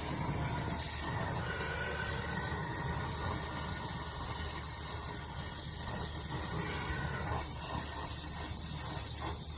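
Brazing torch flame hissing steadily while a copper refrigerant line joint is brazed.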